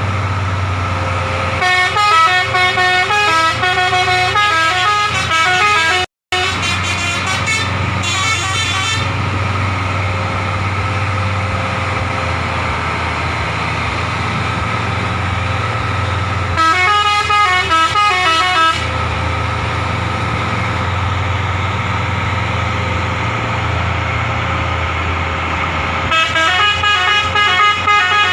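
Indonesian telolet bus horn playing quick stepped melodic tunes in four bursts of a few seconds each, over the steady drone of the bus's engine running. The sound drops out for an instant about six seconds in.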